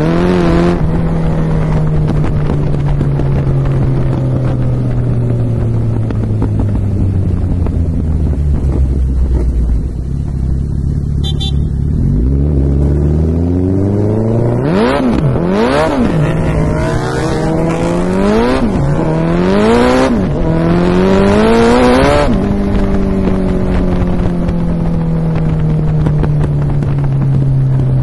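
Suzuki-badged motorcycle's engine and exhaust under way: a steady cruising note that slowly drops in pitch as the bike eases off. Then, from about halfway in, a run of throttle blips, the revs rising and falling several times before settling back to a steady cruise.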